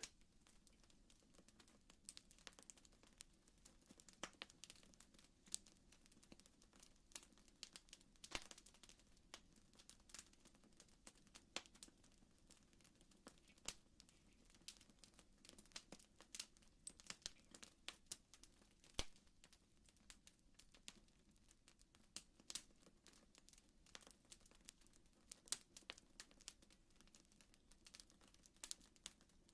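Faint crackling fire ambience: irregular small pops and snaps of burning wood, a few each second, over a low steady hum.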